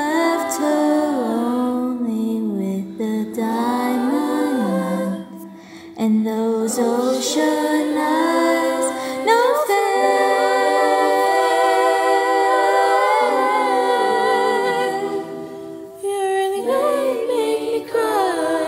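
Treble-voice a cappella vocal jazz ensemble singing sustained chords in close harmony, the voices gliding between pitches. There is a short break about five seconds in, a long held chord in the middle, and a brief lull near the end before the voices come back in.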